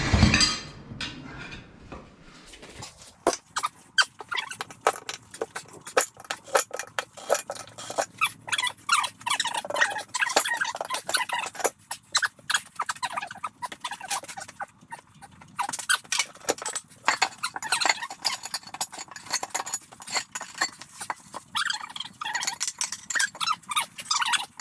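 Tire irons clicking, knocking and scraping against an aluminum wheel rim while a tire is pried off it by hand, with the rubber squeaking. A steady run of sharp clicks, with longer stretches of squeaky scraping.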